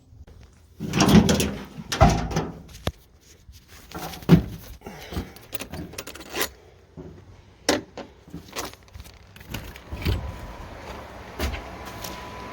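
Knocks and clunks of a camper door being unlocked and opened and someone stepping inside, the loudest about one and two seconds in. In the last couple of seconds a steady hum with a faint whine comes up: the dehumidifier still running.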